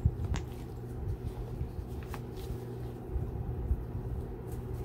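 A clear plastic cup of layered acrylic pour paint flipped over and set down on a painted board for a flip-cup pour, making a few light knocks and taps. Under them runs a steady low hum.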